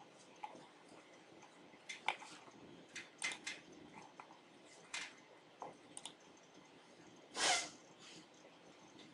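Scattered computer mouse clicks and keystrokes, some single and some in quick little clusters. About seven and a half seconds in comes one short, louder burst of noise.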